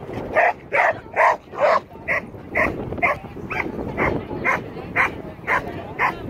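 A dog barking repeatedly, a steady run of short barks about two a second.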